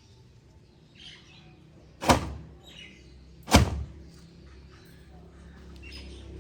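Two sharp knocks about a second and a half apart, with birds chirping now and then in the background.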